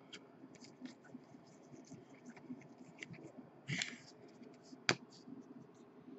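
Chrome baseball trading cards being slid and flipped through by hand: faint scratchy slides and light clicks of card on card, with a louder scrape a little before four seconds in and a sharp click near five seconds.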